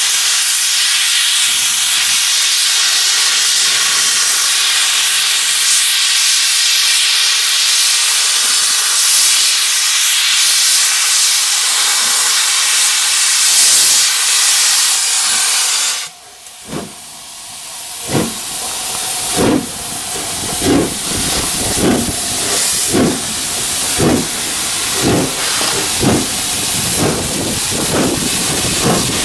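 LMS Princess Royal class Pacific No. 46201 'Princess Elizabeth' starting away. A loud, steady hiss of escaping steam fills the first sixteen seconds or so, then drops away suddenly. About two seconds later her exhaust beats begin: sharp chuffs roughly one a second, slowly quickening as she gets the train moving.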